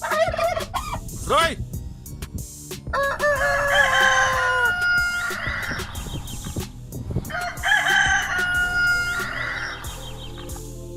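Rooster crowing twice, each a long cock-a-doodle-doo of about two seconds, with a few short rising calls in the first second and a half.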